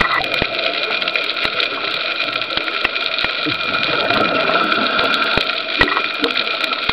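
Underwater sound around scuba divers: a steady hiss and bubbling, with many scattered sharp clicks.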